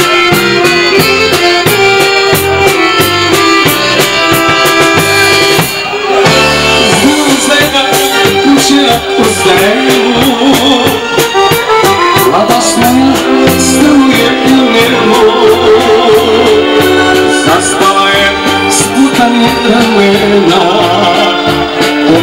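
An accordion-led folk band playing live, with drums and guitar. A man sings from about seven seconds in, after a brief dip in the music.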